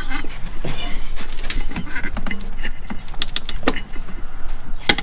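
Irregular metallic clinks and knocks of hand tools and metal parts being handled, some with a short ring.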